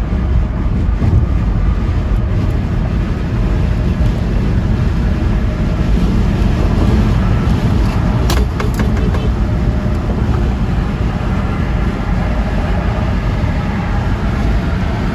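Steady road and wind noise inside a car driving at expressway speed, with a few short clicks about eight seconds in.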